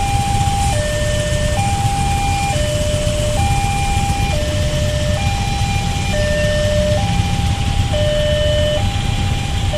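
Railway level-crossing warning alarm sounding its electronic two-tone signal, a higher and a lower note alternating about once a second, over the steady low rumble of idling motorcycle and car engines. The alarm means the crossing is closed for an approaching train.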